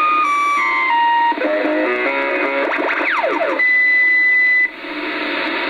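Kenwood TS-2000 transceiver's receiver audio while tuning across a ham band: a string of whistles stepping down in pitch, several tones sliding down in pitch, then a steady whistle about a second long just after the middle, over band hiss.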